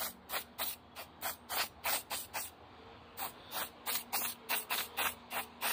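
Rapid short spritzes from a hand spray bottle, about four a second, with a brief pause partway through.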